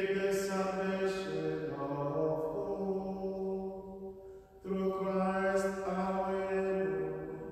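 Slow offertory hymn in long held notes that move up and down in steps. It breaks off briefly about four and a half seconds in, and the next phrase fades toward the end.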